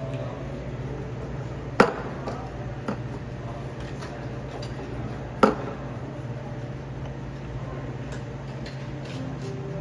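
Two sharp knocks and a few lighter clinks of a ceramic cup and metal milk pitcher being handled at an espresso machine, over a steady low hum.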